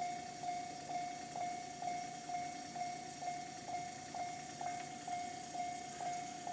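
Japanese railway level crossing warning bell, the electronic JR standard alarm, ringing a steady single-pitched 'kan kan' about twice a second.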